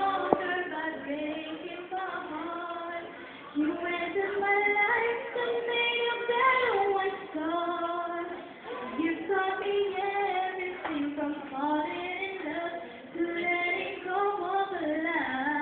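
A woman singing a slow melody into a handheld microphone, holding each note for about a second before moving to the next.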